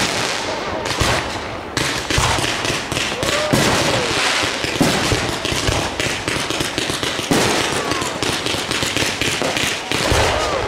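Fireworks display: aerial shells bursting one after another in quick succession, with dense crackling between the louder bangs.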